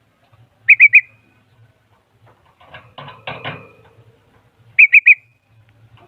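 Bulbul calling: a loud burst of three quick whistled notes about a second in, repeated near the end, with a softer, scratchier call in between.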